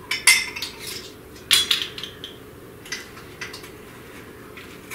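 Measuring spoon clinking against containers and a glass bowl while brown sugar is scooped and tipped in: several sharp clinks, the loudest near the start and about a second and a half in, with lighter taps after.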